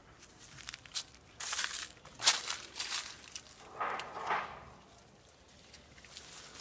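Irregular rustling and crackling, as of leaves and vines being handled during kiwi picking, with the sharpest crackle a little over two seconds in and a softer, longer rustle around four seconds.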